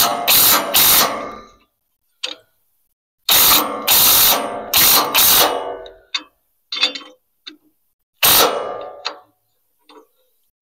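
A bolt on a Hud-son bandsaw mill's track wheel being tightened with a wrench: loud bursts of metallic clicking and clatter in several groups, the last one about eight seconds in.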